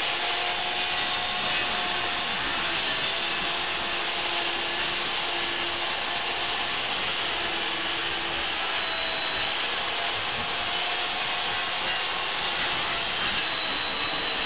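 Hitachi electric circular saw running steadily as its blade cuts through chipboard: a continuous motor whine over the rasp of the blade in the board.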